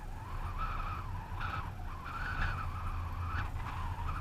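Steady low rumble of a vehicle, with a high, wavering whistle that comes and goes several times.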